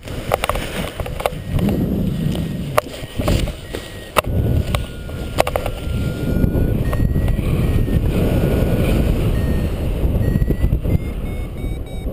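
Wind buffeting the microphone during a paraglider launch and takeoff, with several sharp knocks in the first half. Near the end, a flight variometer's short beeps come in and rise in pitch as the wing climbs.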